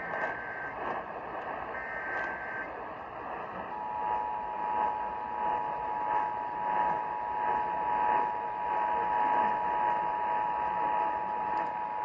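Emergency Alert System test tones on an AM radio broadcast, heard through a portable radio's speaker over AM static hiss. The shrill data bursts of the EAS header end about two and a half seconds in. About a second later the two-tone attention signal starts, a steady dual tone held for about eight seconds.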